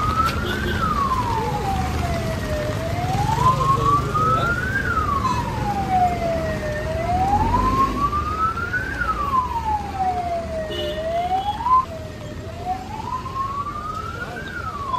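Emergency vehicle siren wailing, rising and falling slowly in pitch about once every four seconds. About three-quarters of the way through, one rise breaks off short and the wail starts again from low.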